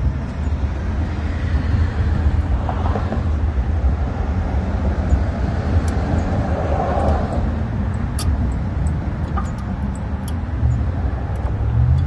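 Steady low rumble, with a few light clicks of brake pads and their metal clips being seated in a car's front caliper bracket.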